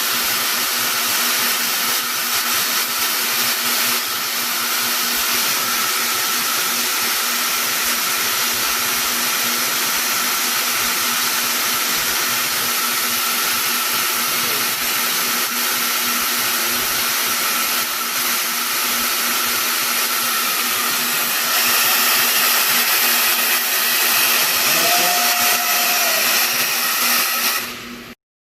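Robotic fiber laser welding machine running: a steady hissing machine noise with a constant low hum, getting louder about three-quarters of the way through, then cutting off suddenly near the end.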